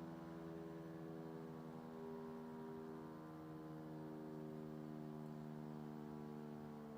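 The Rouen city hall siren, faint, holding a low steady tone with several overtones.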